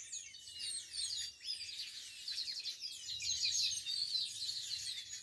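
A chorus of many small songbirds singing together, with quick overlapping chirps and trills that never pause.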